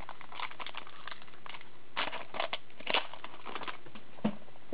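Trading cards being flipped through and slid against each other in the hands: a run of short scraping, flicking and crinkling sounds, busiest about two to three seconds in.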